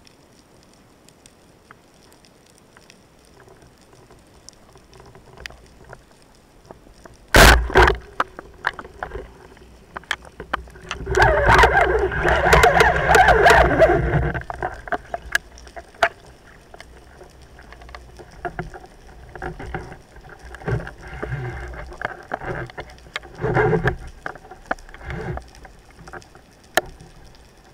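Underwater, a speargun fires with one sharp, loud crack about seven seconds in. A few seconds later comes loud churning and thrashing as the speared greater amberjack struggles, followed by scattered knocks and rustles while the fish is held.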